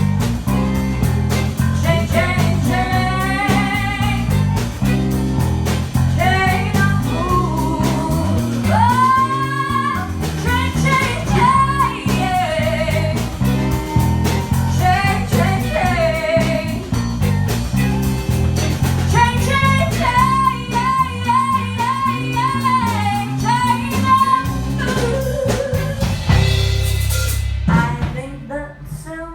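A band with a singer and guitar playing a song live at a sound check in an empty room. The music stops abruptly near the end.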